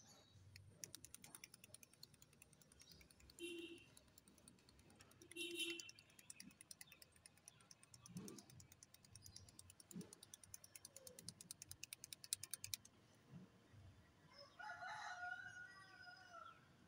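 A touch-up paint pen being shaken, its mixing ball rattling inside in a quick, even run of clicks for about twelve seconds before stopping. A bird calls faintly near the end.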